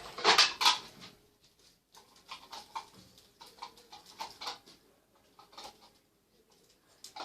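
Reloading a Nerf blaster: plastic handling noise, with a louder rustle and clatter at the start, then a run of small irregular clicks and taps as foam darts are pushed into place.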